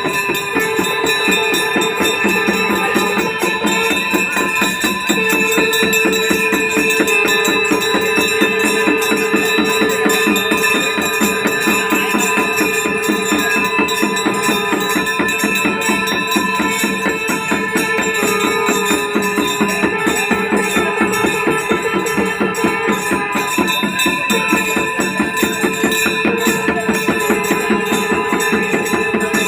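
Ganga aarti music: fast, continuous jingling and clashing hand percussion over steady ringing tones, keeping an even rhythm throughout.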